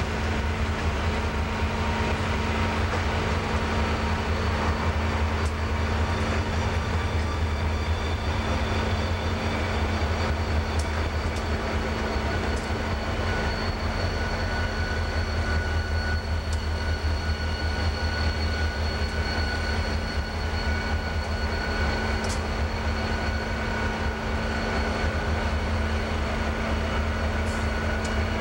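Norfolk Southern EMD SD40-2 diesel locomotive and a trailing Conrail-painted unit passing slowly at close range. Their diesel engines give a steady low drone with a faint high whine over it.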